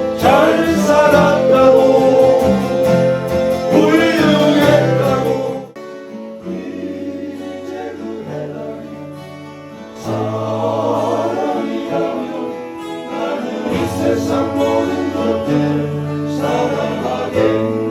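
A group of voices singing a song with guitar accompaniment, quieter for a few seconds about six seconds in, then full again.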